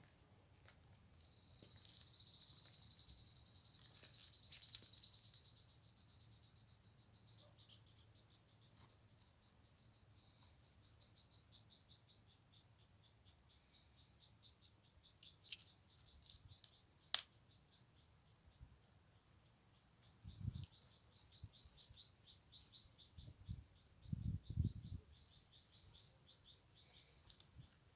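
Faint bird chirping in a long, rapid series of high notes, loudest over the first few seconds, with a few sharp clicks and some low soft thumps near the end.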